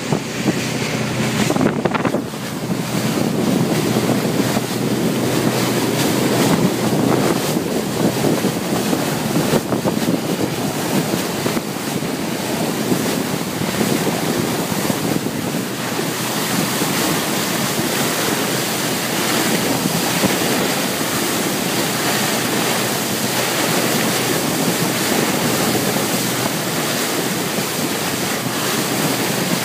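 Steady rush of sea water along a motor yacht's hull, mixed with wind buffeting the microphone, over a faint low steady hum.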